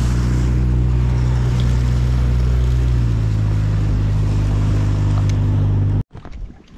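Mikatsu 15 hp outboard motor running steadily under way on a boat, its pitch shifting slightly about three seconds in. It cuts off abruptly about six seconds in, leaving much quieter scattered clicks.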